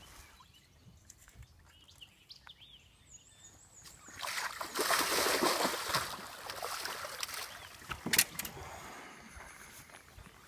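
A big largemouth bass splashing and thrashing at the water's surface beside the boat as it is landed, starting about four seconds in and lasting a few seconds. A single sharp knock follows a couple of seconds later.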